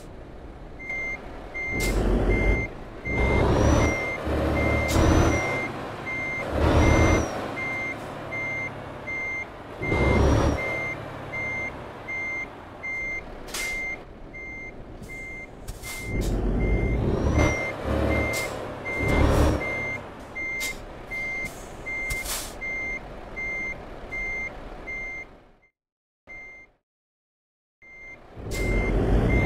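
Lorry reversing alarm beeping steadily, about two beeps a second, while the truck's engine surges loudly several times underneath. Near the end the sound cuts out for a couple of seconds before the beeping resumes.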